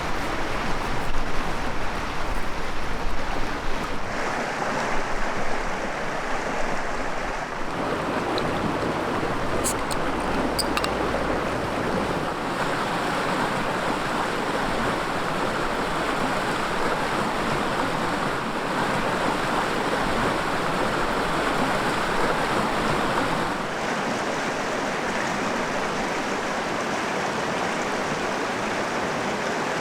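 River water flowing and rushing steadily close by, its tone shifting a few times, with a few faint clicks about ten seconds in.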